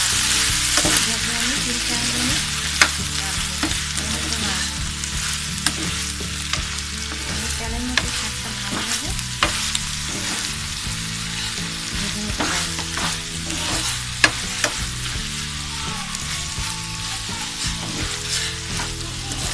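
Malabar spinach, potato and hilsa-head curry frying in oil in a pan, sizzling steadily while a metal spoon stirs it. A few sharp clinks of the spoon against the pan stand out about 3, 8, 9.5 and 14 seconds in.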